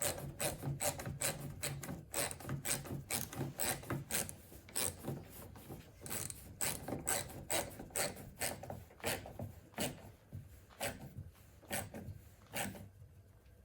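Hand ratchet clicking in a quick, even rhythm as it tightens the bolt that pulls a car's exterior door handle and lock cylinder back into position. The clicks slow and fade near the end as the bolt is done up.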